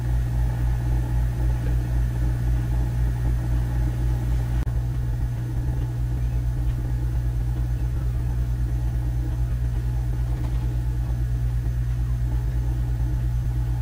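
Steady low mechanical hum that throbs regularly, several times a second, dropping slightly a little under five seconds in.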